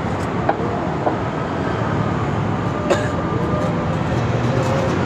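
Steady rumbling background noise, with a few sharp taps of a steel knife on a wooden cutting board as a thick martabak manis is cut and then spread with margarine.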